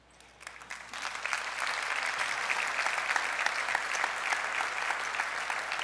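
Large audience applauding, rising over the first second or so and then holding steady.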